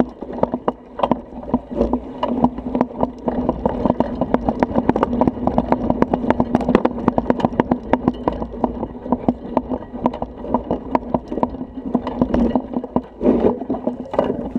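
Bicycle rattling and clattering as it rolls down a bumpy dirt trail, heard through a handlebar-mounted GoPro: a dense, irregular run of knocks and rattles over a steady low rumble.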